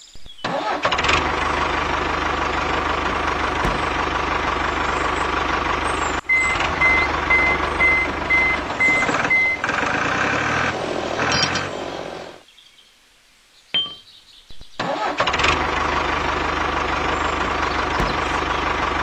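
Tractor engine starting and then running steadily, with a reversing alarm giving short, evenly spaced beeps for about three seconds as it backs up. The engine sound stops for about two seconds past the middle, then carries on.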